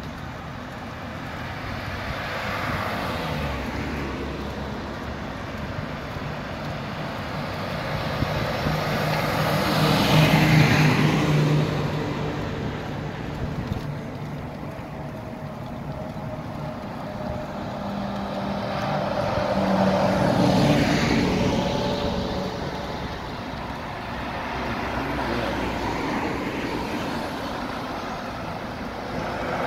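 Road traffic passing along a main road: vehicles drive by one after another, each one swelling and fading with engine and tyre noise. The loudest pass-bys come about ten seconds and about twenty seconds in, with a car towing a trailer and a lorry approaching near the end.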